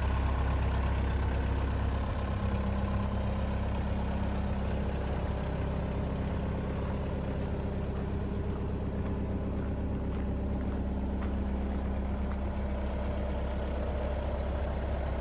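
2013 JCB 1CX backhoe loader's diesel engine idling steadily, a low even hum.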